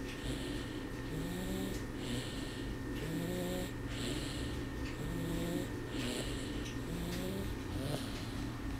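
Steady snoring, one breath roughly every two seconds. Each breath is a hissy draw followed by a short, low, slightly rising pitched snore.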